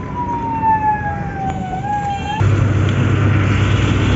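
A siren wailing, its pitch sliding slowly down, cut off suddenly about two and a half seconds in. Then comes steady street traffic noise with a low engine hum.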